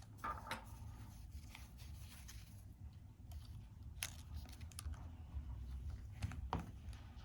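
Faint, scattered small clicks and light scraping from phone parts and tools being handled during a repair.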